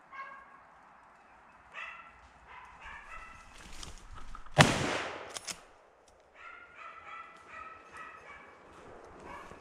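Pack of hunting hounds baying in short runs while driving game through the woods, with a single loud gunshot about halfway through whose report echoes away over about a second, followed by a short sharp click.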